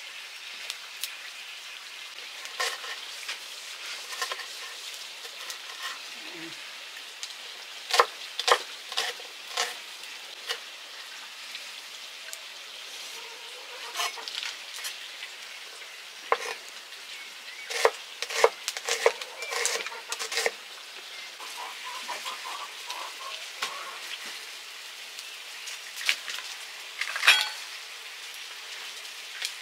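Food sizzling steadily in a hot pan while it is stirred, with a cooking utensil scraping and knocking against the pan. The knocks come in clusters about eight seconds in and again around eighteen to twenty seconds.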